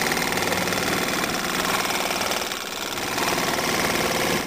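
1971 Evinrude Mate 2 hp single-cylinder two-stroke outboard motor running steadily with a fast, even firing beat. It dips briefly in loudness about halfway through.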